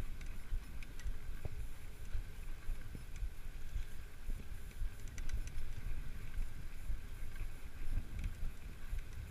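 Wind buffeting the microphone of a camera on a moving tandem bicycle, a steady low rumble that rises and falls, with a few light clicks and rattles as the bike rolls along a paved path.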